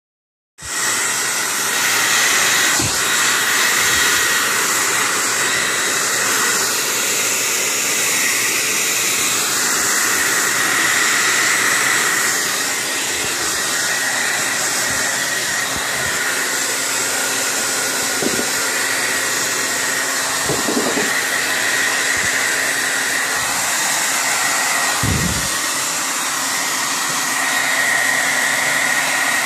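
Hair dryer running steadily: an even rush of air with a high whine.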